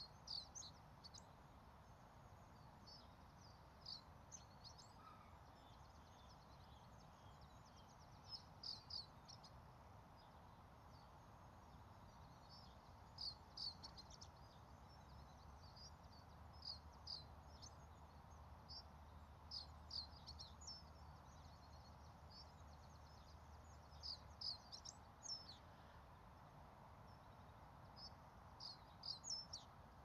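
Male common reed bunting singing: short, simple phrases of a few high chirps, about eight of them, repeated every four to five seconds.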